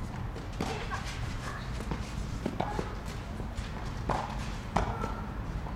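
Red low-compression tennis balls being hit in a rally: a handful of sharp knocks from racket strikes and court bounces, the loudest two about four and five seconds in, with footsteps between them.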